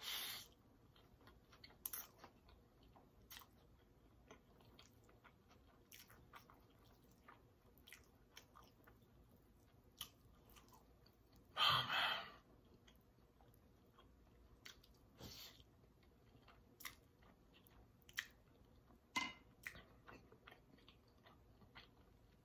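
Close-miked chewing of spicy instant noodles: soft, wet mouth clicks scattered throughout. Short, loud noodle slurps come at the start and again about twelve seconds in.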